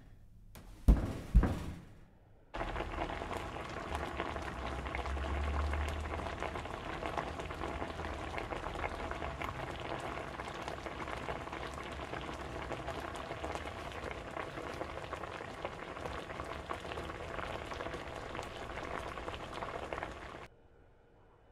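Two sharp thumps about a second in, then a steady crackling hiss that starts abruptly and cuts off near the end.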